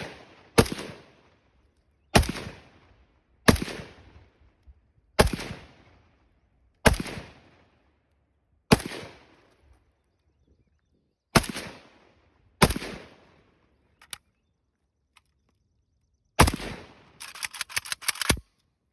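AK-pattern rifle (Kalashnikov) fired one shot at a time, nine sharp reports each followed by a short echo, then a quick string of about eight rapid shots near the end.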